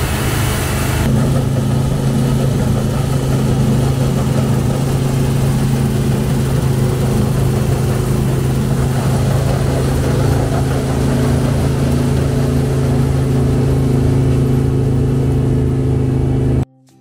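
Combine harvester running steadily while cutting wheat: a loud, constant engine drone with the whirr and rattle of its machinery. It cuts off abruptly near the end.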